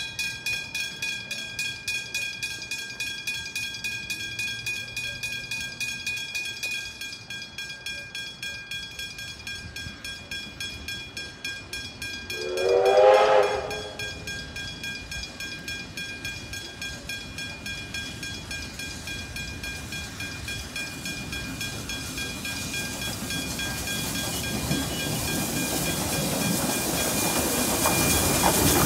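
Level crossing bells ringing rapidly, about three strokes a second, as Victorian Railways K-class steam locomotive K183 approaches. A steam whistle sounds one blast of about a second and a half near the middle, and the working locomotive then grows steadily louder until it is passing near the end.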